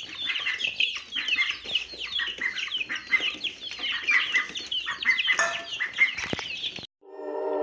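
A brood of chicks and ducklings peeping nonstop, many short, high, downward-sliding calls overlapping. Near the end the peeping cuts off and music begins.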